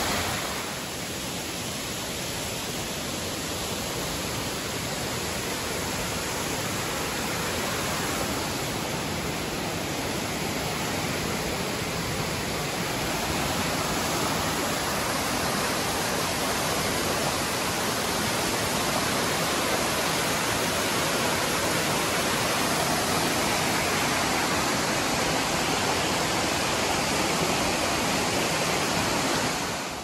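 Waterfall pouring into a rocky pool: a steady, even rush of falling water, dipping slightly about a second in.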